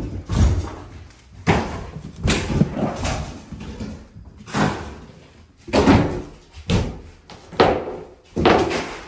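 Irregular heavy bangs and thuds, roughly one a second, of old flooring and subfloor being torn out and pried up during demolition.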